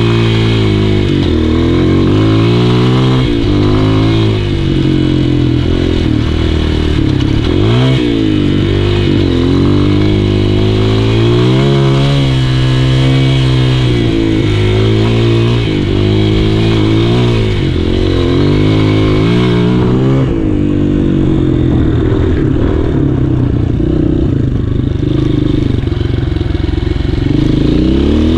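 Honda CRF230F's air-cooled single-cylinder four-stroke engine heard from the saddle, revving up and dropping back again and again as it is ridden up a gravel hill climb. After about twenty seconds it settles into a steadier, lower run.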